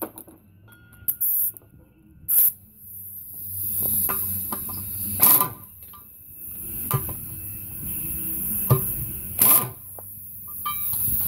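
Pneumatic impact wrench on an air hose, fired in several short bursts on the studs of a split military combat wheel.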